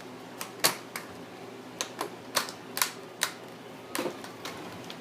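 Plastic screen bezel clips of an Acer Aspire 7741G laptop snapping into place as the bezel is pressed onto the lid: about ten sharp clicks, irregularly spaced, showing the bezel is seating.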